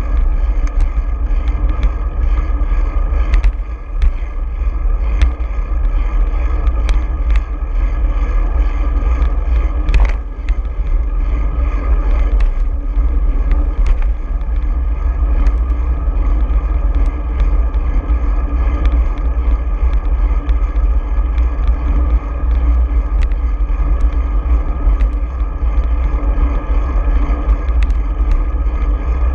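Wind buffeting and road rumble on a front-mounted action camera while riding along a bike lane, with frequent sharp clicks and knocks from bumps in the road.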